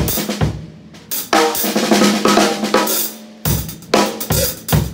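Drum kit beat played on Zildjian K Custom Dark hi-hats, with snare and bass drum strokes, broken by two short pauses between phrases.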